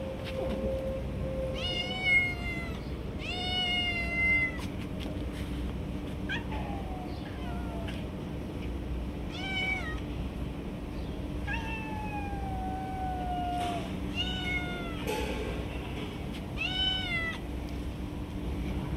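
Stray cats meowing for food, about eight separate meows with pauses between them, most short, one long and falling in pitch. A low steady hum sits underneath.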